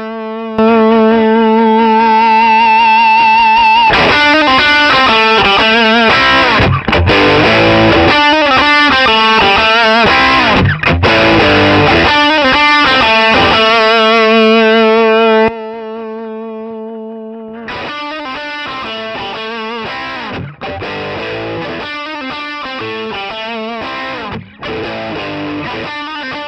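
Overdriven electric guitar played through a Suhr Jim Kelley 60-watt all-tube amp with four 6V6 output tubes: held notes with vibrato, then riffing. The volume jumps sharply less than a second in as the power attenuator's footswitch is pressed. It drops back to the lower level about 15 seconds in.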